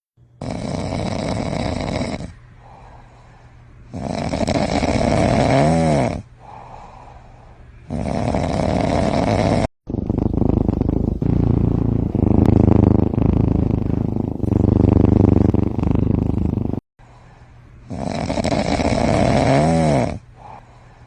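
Cats snoring in their sleep: loud snores of about two seconds each, roughly every four seconds. The sound cuts off sharply twice, about ten and seventeen seconds in, as one sleeping cat's snoring gives way to another's.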